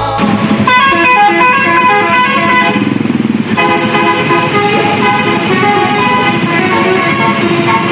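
A bus's Basuri 'telolet' multi-tone horn playing a melody in stepped notes. It stops briefly about three seconds in, then plays on.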